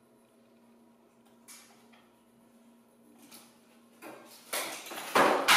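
Wooden boards and picture frames being shifted and knocked together: one small knock about a second and a half in, then a louder run of clattering knocks and scrapes in the last second and a half. A faint steady hum lies under the quiet first part.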